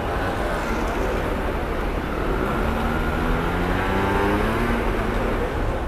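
Motor scooter engine running close by. Its pitch climbs, holds and rises gently for a few seconds, then fades, over steady low street traffic noise.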